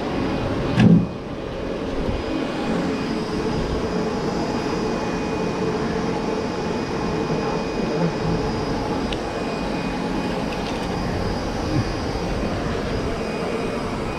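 Steady mechanical hum over a low rumble, with a single short thump about a second in.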